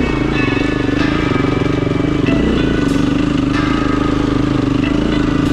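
A motor vehicle's engine running steadily with an even, fast pulse.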